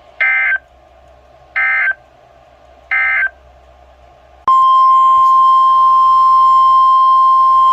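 Three short bursts of warbling EAS/SAME digital data tones, about a second and a half apart, typical of the end-of-message code that closes a weather radio alert. About four and a half seconds in, a loud, steady NOAA Weather Radio 1050 Hz warning alarm tone begins and holds.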